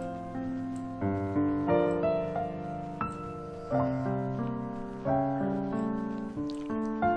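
Soft background piano music, with new notes and chords struck about once a second and left to ring.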